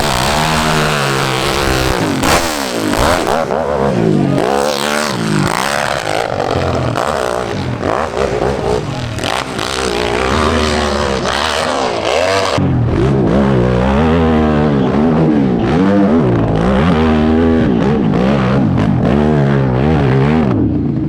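Nitro-fueled hillclimb motorcycle engine revving hard, its pitch rising and falling again and again as the throttle is worked. It bogs rather than pulling cleanly.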